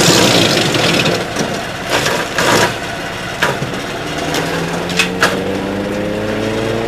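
Nova-Tractor BX2000E chipper shredder's flywheel knives chewing through a 4-inch log: dense crunching and crackling, with sharp wood cracks about two, two and a half, three and a half and five seconds in. The gas engine is pulled down under the load and climbs back up in pitch over the last couple of seconds as the log clears.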